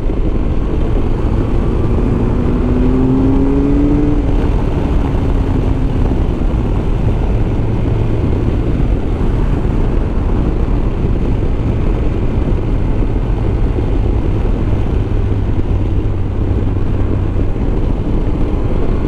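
Motorcycle being ridden at road speed, heard from the bike itself: a steady mix of engine running and rushing wind. A few seconds in, a short tone rises in pitch and then fades.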